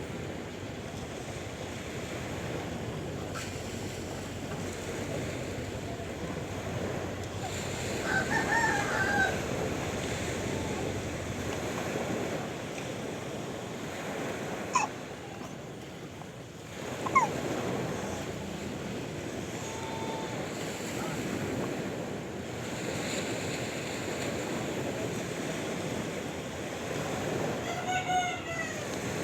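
Sea waves washing in steadily, with a rooster crowing near the end. A few shorter pitched calls and two sharp clicks come earlier.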